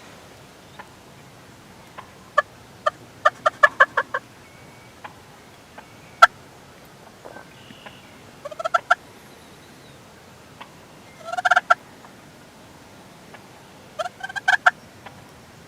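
Turkey calling in four short bouts of quick, evenly spaced notes, close and loud. A few single sharp taps fall in between, the loudest about six seconds in.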